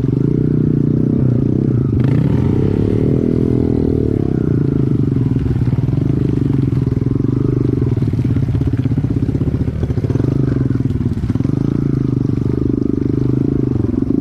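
Motorcycle engine running steadily at a constant speed.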